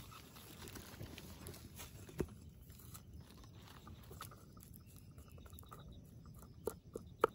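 Faint handling sounds over quiet background noise: a few light, sharp knocks and clicks, one about two seconds in and three close together near the end, the last one the loudest.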